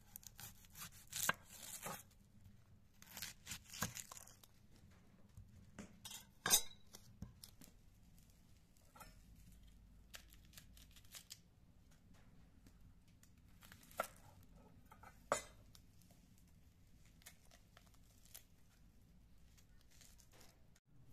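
A kitchen knife cutting through a red onion and knocking on a stone countertop, about half a dozen sharp knocks spread out, with the dry papery onion skin torn and peeled off by hand in rustling stretches.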